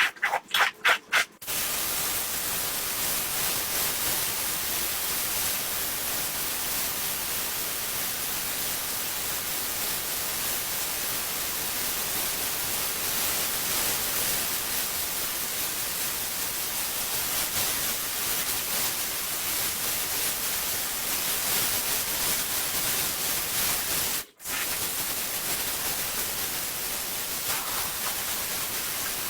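Steady hissing spray of water, typical of carpet washing. It is preceded by a quick run of rhythmic pulses in the first second and a half, and briefly cuts out about 24 seconds in.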